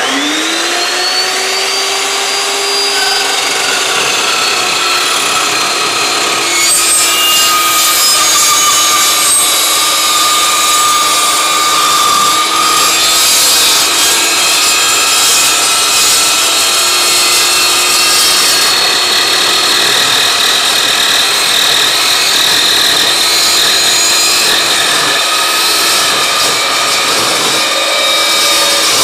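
Evolution S380CPS 15-inch dry-cut metal chop saw spinning up with a rising whine. About six seconds in, its carbide-tipped blade starts cutting through 2x4-inch, 1/8-inch-wall steel tubing clamped at 45 degrees, a long cut with a steady, high-pitched cutting noise over the motor's whine.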